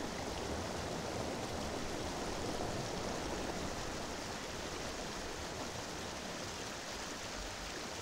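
Steady rushing of a fast-flowing river running over rocks.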